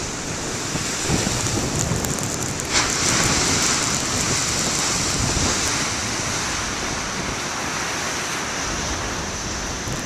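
Heavy ocean surf breaking against rocks, a steady rushing roar that swells louder about three seconds in, with wind buffeting the microphone.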